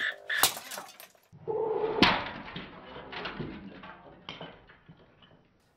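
A sharp hit, then about a second later a loud crash as the plastic Goldair CR4 alarm clock radio breaks apart, its pieces clattering and rattling to a stop over the next couple of seconds.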